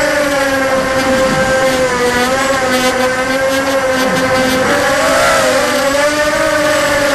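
ZMR250 racing quadcopter's brushless motors and 5-inch KingKong 5040 props whining at a steady high pitch, heard from the onboard camera with a rush of wind. The pitch dips and rises slightly with throttle changes, most noticeably in the second half.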